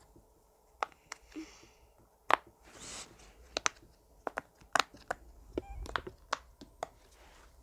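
Silicone pop-it fidget toy being pressed, its bubbles popping with about fifteen sharp, irregularly spaced clicks.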